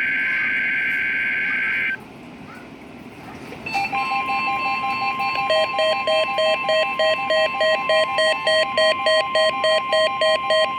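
NOAA Weather Radio weekly test signal: the last of a SAME digital data burst, a harsh warbling buzz, cuts off about 2 seconds in. About 4 seconds in the steady 1050 Hz warning alarm tone starts, with a pulsing beep about twice a second over it.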